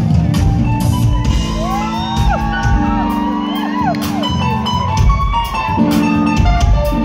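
Live band music: a violin plays the lead melody with sliding, swooping notes over drums, bass and keyboards.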